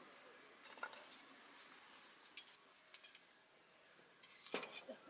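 A few faint, short clinks and knocks over a quiet background, as of small camp gear being handled: one about a second in, another a little later, and a quick cluster of several near the end, the loudest of them.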